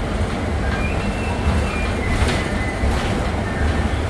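Ride noise inside a moving bus: a steady low rumble of engine and road, with a few brief high squeaks and a click a little past halfway.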